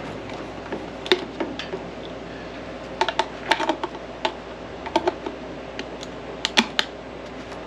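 Hand wire crimper clicking as connectors are crimped onto taillight wiring: a scatter of sharp clicks, a cluster about three to four seconds in and more near the end.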